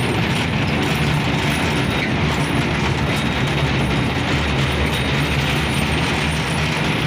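Train running steadily on the rail line, a continuous rumble of wheels on track with a low, even drone underneath.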